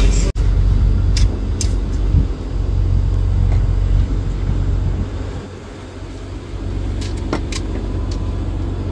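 Fishing boat's diesel engine running with a steady low drone. It eases off for about a second a little past the middle, then comes back.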